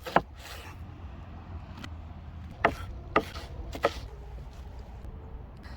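Four sharp, short knocks or cracks spread over a few seconds, over a steady low rumble.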